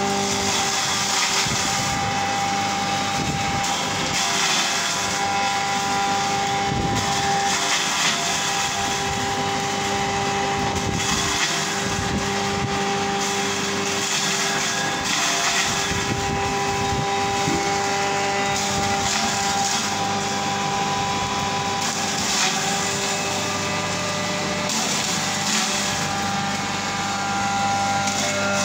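A 3 HP commercial gravy machine (onion-paste grinder) running steadily with a motor hum while it grinds peeled onions into paste. Each time an onion is pushed down the feed hole, a louder grinding surge follows, every few seconds and irregularly.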